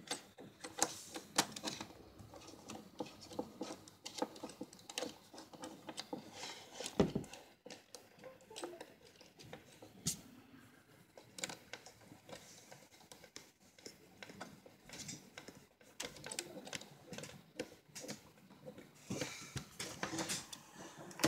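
Scattered, irregular light clicks, taps and rustling of hands handling a laptop, its keyboard and cables at close range.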